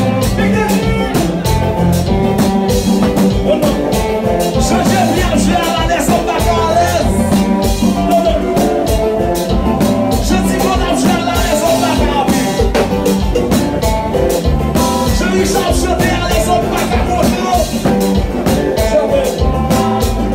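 Haitian kompa band playing live, a continuous dance groove with a singer's voice over it.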